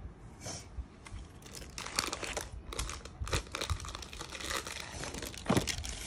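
Paper and plastic wrapping crinkling as it is handled, in irregular crackles with a louder crackle near the end.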